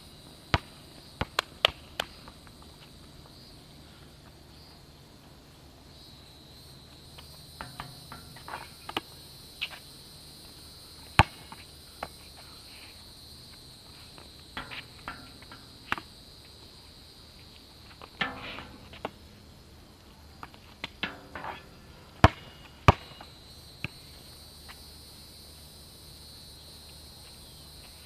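Basketball bouncing on an asphalt court and striking the hoop: scattered sharp thuds in small clusters, a few of them with a short ringing after. A steady high insect chorus, like crickets, runs underneath.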